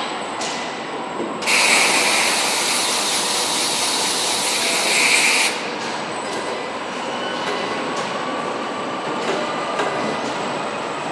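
Factory machinery noise on a truck cab body line: steady mechanical running with metal clanks and knocks. A loud hiss starts about a second and a half in and stops after about four seconds.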